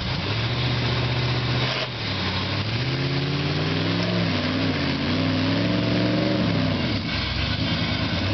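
Rock-crawler buggy's engine running steadily, then revving up and falling back several times as the buggy crawls over boulders.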